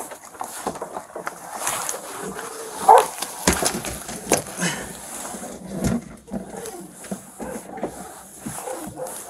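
A cornered feral dog making sounds as a catch pole is worked around its head, the loudest a short sharp call about three seconds in. Knocks and scrapes of the metal catch pole come through several times.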